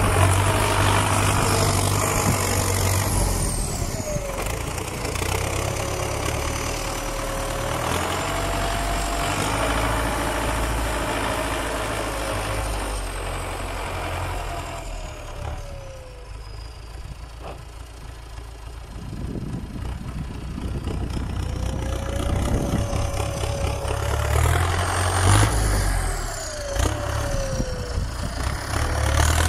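MTZ-82 tractor's turbocharged diesel engine working as the tractor pushes snow with a front blade, a whistle rising and falling as the revs change. It gets quieter in the middle as the tractor pulls away, then louder again near the end as it comes back.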